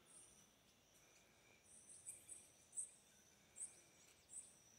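Quiet outdoor ambience: several short, very high chirps from small animals, most of them after about two seconds, over a faint steady high tone and soft hiss.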